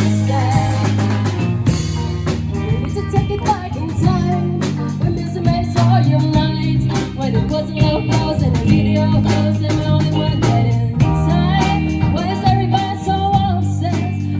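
Live band playing a pop song: drum kit with a steady beat, bass and guitar, and a lead voice singing.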